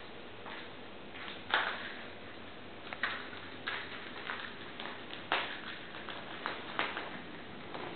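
Kittens playing on a hard tiled floor: scattered light taps and clicks of paws, claws and a batted toy, with a louder thump about a second and a half in.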